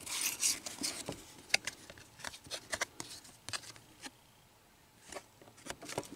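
Cardboard baseball cards being flipped through by hand: cards sliding and rubbing against each other with short flicks and taps, and cards tossed onto a pile. There is a quieter lull about four seconds in.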